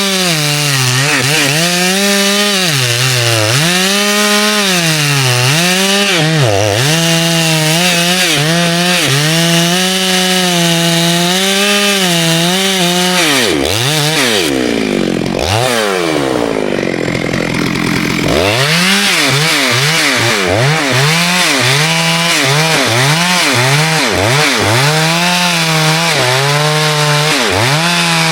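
Chainsaw cutting wood, its engine pitch swinging up and down every second or two as the chain loads in the cut. About halfway through it falls to a low idle for a few seconds, then revs back up and keeps cutting.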